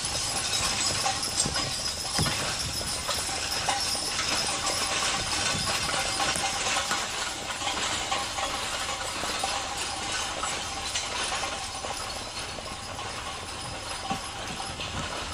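Hooves of a six-horse team clip-clopping on a dirt road, mixed with the metal rattle and clank of the steel disc harrow they are pulling, slowly fading as the team moves away.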